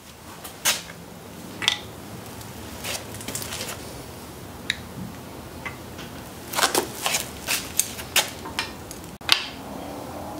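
Light, irregular metal clicks and clinks as hydraulic lifters are worked out of a Ford 2.3L four-cylinder cylinder head by hand, with a quick run of clicks about two-thirds of the way through.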